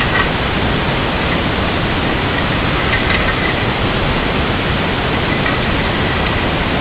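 Steady, loud hiss with no pitch or rhythm.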